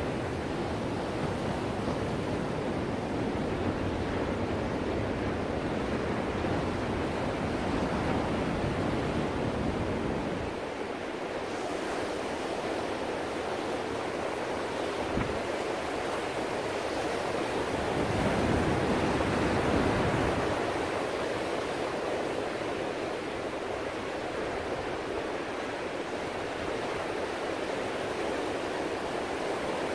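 Ocean surf: waves breaking and washing in as a continuous rush, swelling louder about two-thirds of the way through.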